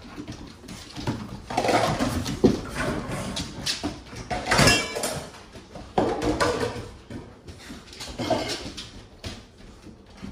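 Pit bull dogs vocalising excitedly in irregular short bursts, with a high, pitched whine about four and a half seconds in.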